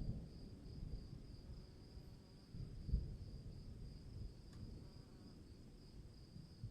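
Low rumble of distant thunder rolling and swelling about three seconds in, over a steady high drone of insects.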